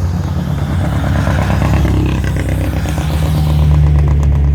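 Hill-climb race car engine running at low revs as the car rolls past on its way back down, with an even, rapid exhaust pulse that grows louder about three and a half seconds in.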